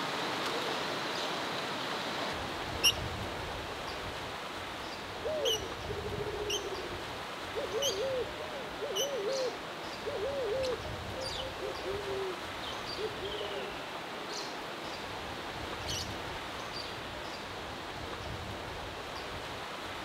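Fischer's lovebirds giving short, shrill chirps singly here and there, the loudest about three seconds in, over a steady outdoor hiss. Through the middle, another bird gives low hooting calls in quick runs.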